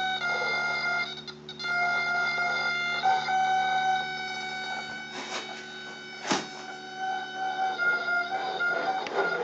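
Car wiper motor, driven through a motor amplifier board, working the actuator arm back and forth: a steady high electrical whine that shifts pitch as the motor is commanded and drops out for a moment about a second in. A single sharp knock about six seconds in.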